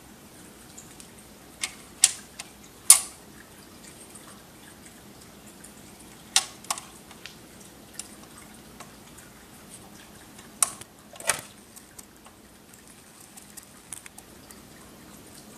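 Dual 1019 automatic record changer's mechanism clicking through a record-change cycle as the tonearm swings over the record: a series of sharp, irregular clicks and knocks, loudest about three seconds in and again around eleven seconds, over a low steady running noise.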